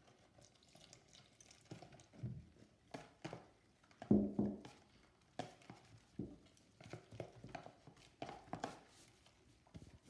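Wire whisk stirring flour and warm water into a paste in a plastic tub, with irregular clicks and taps of the whisk against the container. A brief louder knock about four seconds in.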